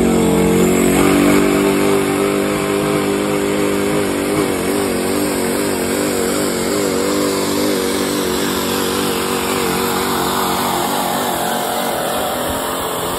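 Open-class pulling truck's diesel engine running flat out under heavy load as it drags a weight-transfer sled. A loud, steady engine note that wavers a little in pitch partway through the pull.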